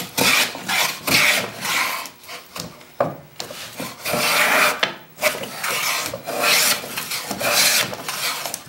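A 22-inch hand plane cutting shavings off a board in repeated strokes: a run of rasping swishes, each about a second long, with short breaks between them. It is flattening the board down to clean bare wood.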